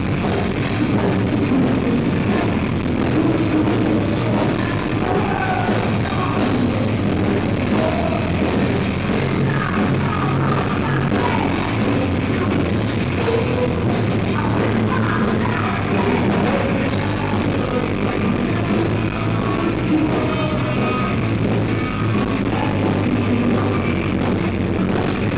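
Live rock band playing loud and steady: electric guitar, bass and drums with singing, heard through the camera's microphone from the audience.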